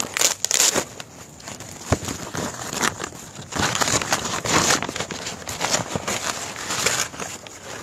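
A large paper envelope being torn open by hand, with irregular paper rustling, crinkling and tearing.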